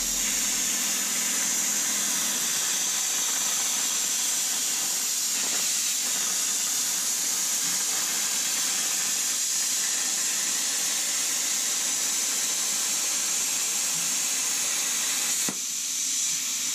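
ArcDroid CNC plasma cutter cutting through steel plate at full power: a loud, steady hiss of the plasma arc and its air jet, with a short dip near the end.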